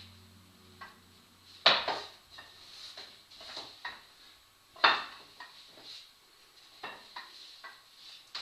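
Wooden rungs of a rope ladder clacking and knocking against a wall as a person pulls on it and hangs from it: two loud knocks about three seconds apart, with lighter taps and clacks between.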